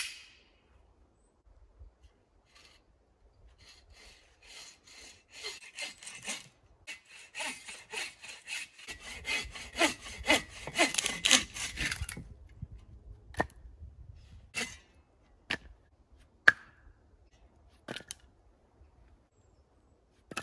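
Folding hand saw cutting through a dry branch, the rasping strokes growing louder for several seconds until the cut ends about twelve seconds in. Then a few separate sharp wooden knocks as cut lengths are handled and dropped, the loudest about sixteen seconds in.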